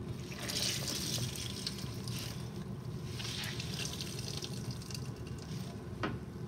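Water trickling and dripping into a stainless-steel sink as slices of water-soaked bread are squeezed out by hand, coming in several short spurts.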